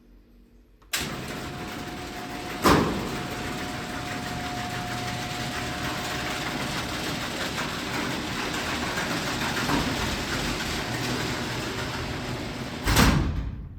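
Genie screw-drive garage door opener running loud and steady as it closes the door. It starts abruptly about a second in, gives a sharp clack a couple of seconds later, and ends with a loud bang near the end before going quiet.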